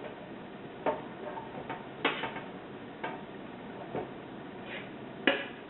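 Mango pieces going into a blender jar: five separate sharp knocks about a second apart, the last one the loudest, over a faint steady hiss.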